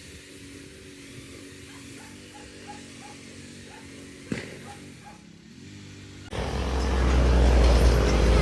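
A faint, steady low hum with light repeated chirps, then about six seconds in a sudden loud rumble of wind and road noise from a moving vehicle.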